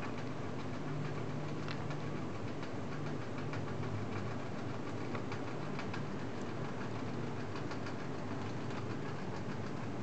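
A pet rat gnawing a hard dog biscuit: small irregular clicks and crunches, over a steady low hum.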